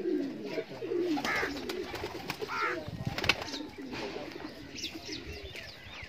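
Domestic pigeons cooing in a loft, with a couple of higher calls and a sharp click about three seconds in.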